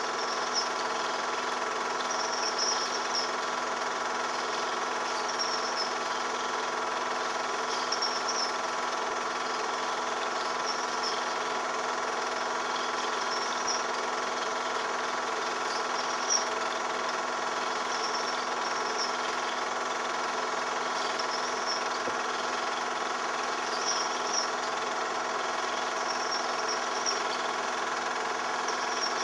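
Film projector running steadily: an even mechanical whir made of several fixed tones, with a faint high chirp every couple of seconds.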